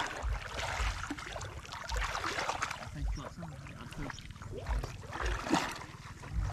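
Shallow pond water splashing and sloshing irregularly as it is stirred during net fishing, with dull low thumps every second or so.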